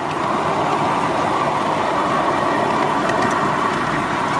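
Steady running noise from a ride aboard a 7¼-inch gauge battery-electric locomotive: wheels rolling on the rails, with no engine note.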